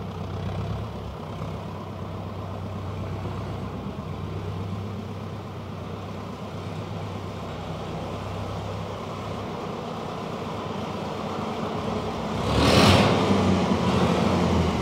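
Perkins diesel tractor engine running steadily at low revs. Near the end comes a loud, brief burst of noise, and the engine stays louder afterwards.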